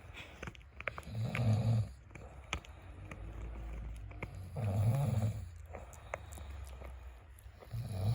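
A man snoring in slow, even breaths, three snores about three and a half seconds apart. Short sharp clicks between them are a dog gnawing a bone chew stick.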